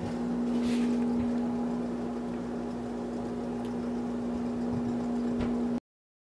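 A steady low hum, like a running appliance, with a few faint knocks and rustles. It cuts off abruptly near the end into dead silence.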